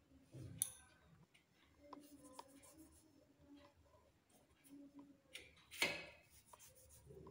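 Faint rubbing and scraping of hands shaping small pieces of soft wheat-flour dough and dropping them into dry flour, with two brief louder scrapes, one just after the start and one about six seconds in.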